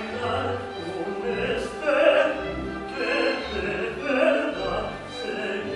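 A man singing opera, a run of held, sustained notes.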